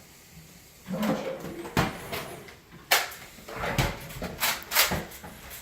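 Several sharp plastic clacks and knocks of a jammed Nerf blaster being worked to clear the jam.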